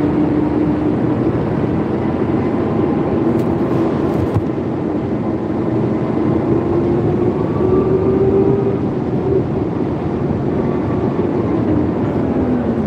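Forklift running as it is driven: a steady loud drive noise with a whine that slowly rises in pitch midway and falls again near the end.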